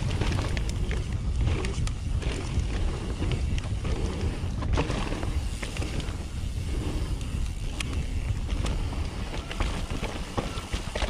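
Nukeproof Mega 290 downhill mountain bike ridden fast over rough trail: continuous tyre rumble and wind buffeting the helmet camera's microphone, with frequent rattles and knocks from the bike over the bumps.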